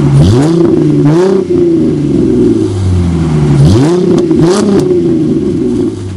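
Car engine revved twice, its pitch climbing sharply and dropping back each time, running steadily loud between the revs.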